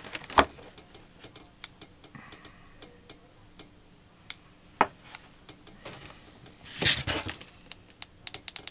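Scattered small clicks and taps from hands handling a ring light's cable and its plastic inline control box. There is a brief rustle of handling about seven seconds in and a quick run of clicks near the end.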